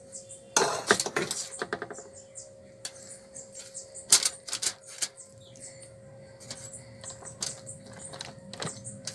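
A fork clicking and scraping against aluminium foil and fish as vegetable stuffing is pressed into a snapper. It comes in three bursts of quick clicks, near the start, in the middle and near the end, over a faint steady hum.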